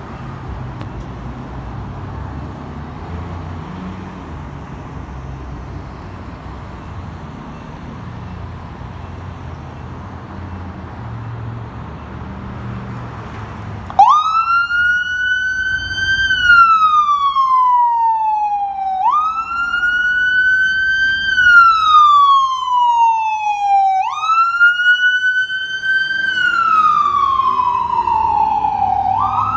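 Low street-traffic rumble, then about fourteen seconds in a fire engine's siren starts loudly in a wail. Each cycle jumps up in pitch and slides slowly down, repeating about every five seconds.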